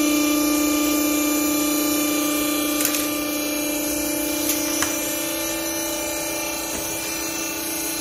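Hydraulic power unit of a vertical used-clothes baler running with a steady hum as the press platen lifts off the strapped bale. A few faint clicks about three and five seconds in.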